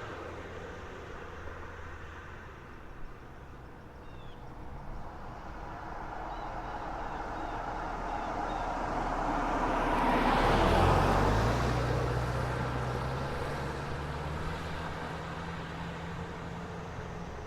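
A car approaching and passing by, its tyre and engine noise swelling to a peak about eleven seconds in and then fading away, over a steady hum of road traffic. A low engine hum lingers after it passes.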